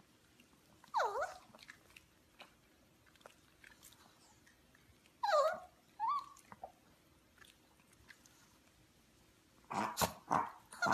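Small fluffy puppy giving short high yips and whines that swoop down and back up in pitch: one about a second in and a pair around five to six seconds in. A few sharp clicks and another yip come near the end.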